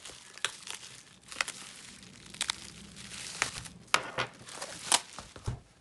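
Plastic bubble wrap crinkling and tearing as it is pierced with a pen and peeled open from around a CD album, with a few sharp crackles, the loudest about four and five seconds in.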